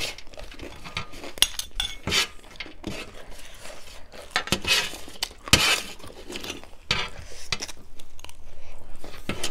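Spoons clinking and scraping against plates and bowls in irregular sharp clicks, with a few longer scrapes, mixed with crunchy chewing of dry chicken chatpate, a puffed-rice snack, close to the microphone.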